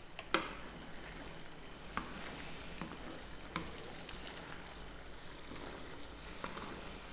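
Wooden spatula stirring thick, creamy penne in a nonstick frying pan, a low wet scraping with a few light knocks against the pan, the loudest about half a second in, over a faint steady sizzle of the simmering sauce.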